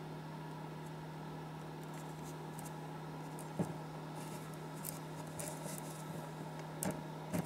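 A few faint clicks and a soft knock as a part-built model oscillating steam engine's brass flywheel and crankshaft are handled and turned by hand, over a steady low hum.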